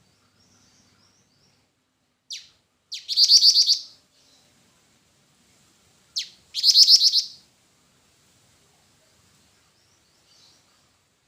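Jingjing batu (black-winged flycatcher-shrike) calling: twice, a quick falling whistle followed by a fast high trill of about a second.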